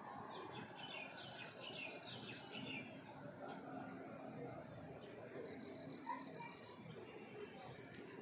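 Insects, crickets or cicadas, trilling steadily at a high pitch over a low steady background hiss, with a flurry of short bird chirps in the first few seconds.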